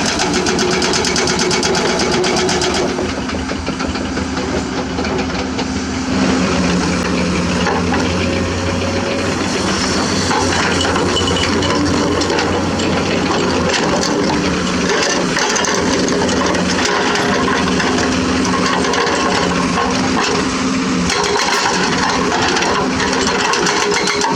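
Hydraulic excavator's diesel engine working, its pitch dropping about three seconds in, rising again around six seconds and shifting once more near the end as the load changes. Scattered short clanks and scrapes run through it.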